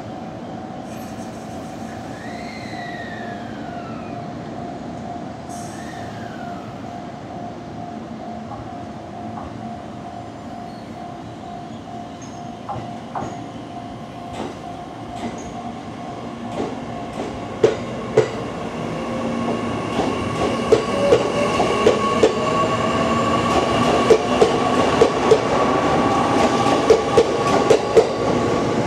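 Two JR electric commuter trains pulling out of a station: early on a few falling electric whines and a steady hum, then the E501 series starts off, its traction motor whine rising and growing louder as it picks up speed, with wheels clicking over rail joints more and more often as it passes.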